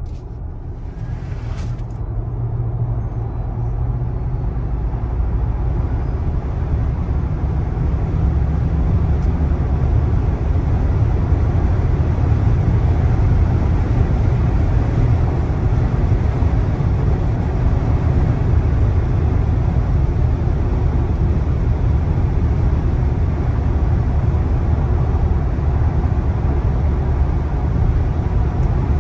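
Road and wind noise heard inside a Tesla Model Y's cabin at speed, a steady low rumble. It grows louder over the first ten seconds or so as the car accelerates to about 190 km/h, then holds steady.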